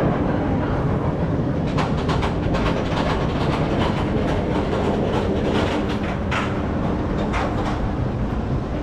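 Roller coaster train running along its steel track: a steady heavy rumble with a rapid clattering of wheels and track joints.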